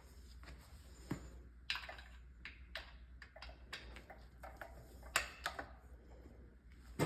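Irregular light clicks and taps of hand tools and metal parts being handled on a gearbox, a dozen or so sharp knocks, the loudest about five seconds in and near the end, over a steady low hum.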